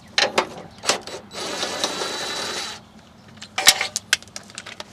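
Ratchet strap being fitted: metal clicks and rattles from the ratchet buckle and hooks, with a steady rushing hiss for about a second and a half in the middle as the webbing is pulled through.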